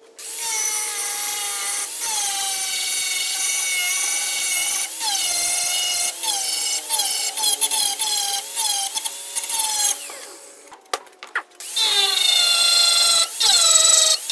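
Power grinder grinding the bevel of a steel knife blade: a steady whine whose pitch dips and recovers every second or so, stopping briefly about two-thirds through with a few clicks before it runs again.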